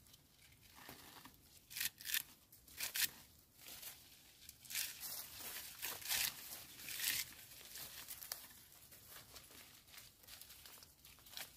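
Leafy branches of a phak wan tree rustling and crackling as young shoots are plucked off by hand, among dry bamboo. It comes as a run of short bursts, most of them in the first seven seconds.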